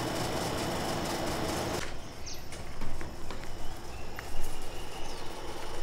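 Steady vehicle noise that cuts off abruptly about two seconds in, followed by quieter open-air background with a few short bird chirps.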